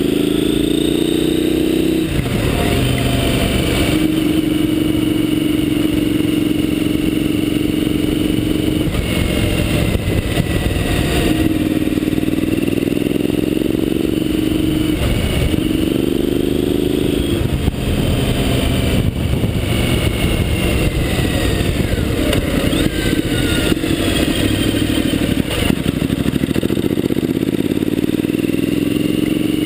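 Triumph motorcycle engine under way, its pitch climbing and then dropping back several times as the rider accelerates and changes gear, heard from a camera mounted low at the front of the bike.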